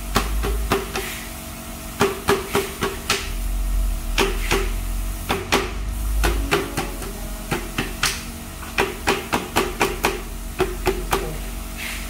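Repeated light taps knocking the ABS plastic inner core of a planter mold loose from the cured cement. The knocks come in quick runs of several a second with short pauses between runs, each with a brief ring.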